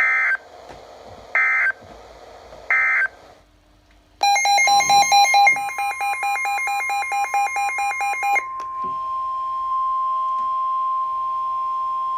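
Emergency Alert System signalling on NOAA Weather Radio: three short bursts of SAME digital data tones, about a second and a half apart. After a brief pause a weather-alert receiver's electronic alarm beeps rapidly, about five beeps a second, for around four seconds over the steady single-pitch warning alarm tone, which carries on alone once the beeping stops.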